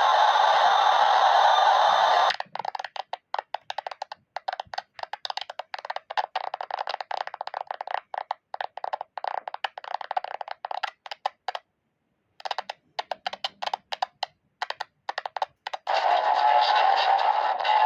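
A recorded sneeze clip put through digital audio effects: a loud steady rushing noise for about two seconds, then chopped into rapid stuttering fragments with a brief silent gap midway, and the steady noise returns near the end.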